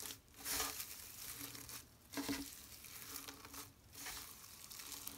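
Shredded paper strips crinkling and rustling as hands knead them into a lump of slime, a soft crackle that swells a few times.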